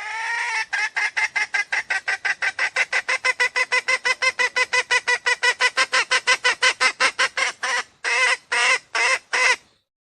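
Junglefowl lure call: a rising opening note, then a rapid string of pitched clucking notes at about five or six a second for some eight seconds. After a short break come four slower notes.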